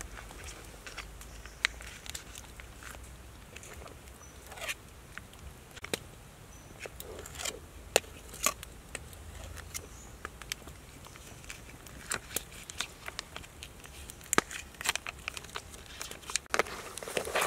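Pot of crabs boiling in broth, with irregular pops and crackles, thicker near the end.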